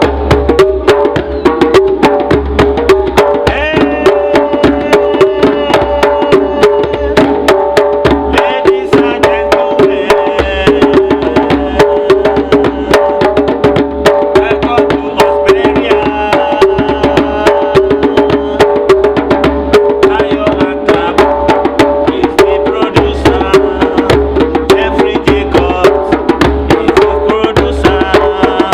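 Djembe hand drums played together in a dense, fast, unbroken rhythm, with a steady pitched tone sounding underneath the strokes.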